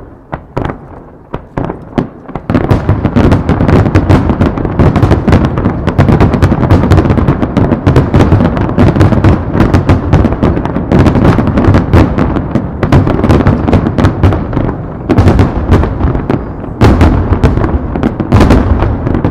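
Fireworks barrage: a few separate bangs in the first two seconds, then a dense, continuous run of aerial shells bursting in rapid succession, deep booms mixed with sharp cracks. It eases briefly about three-quarters through, then builds again.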